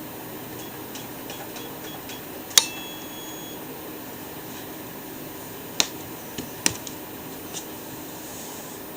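Keypad buttons pressed one after another, each with a short electronic beep, then a louder click with a longer beep about two and a half seconds in, as if a PIN were being entered and confirmed. Two sharp clicks follow a few seconds later, over a steady fan-like hum.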